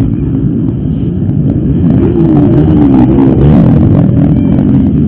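Several motocross bikes' engines running at once, loud and steady, their pitches rising and falling and crossing as they rev and change speed.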